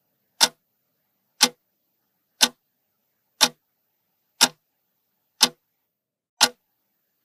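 Clock-ticking sound effect marking a countdown timer: one short, sharp tick each second, seven in all, with silence between them.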